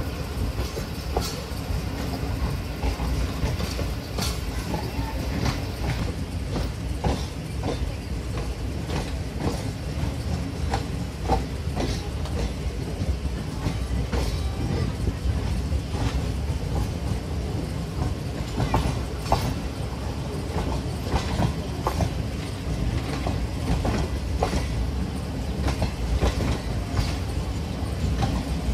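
Train running along the track: a steady low rumble with irregular clicks and clacks of the wheels over the rails.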